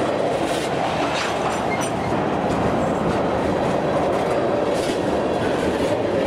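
Freight train of tank cars rolling past close by: steady wheel-on-rail running noise with a few faint clicks.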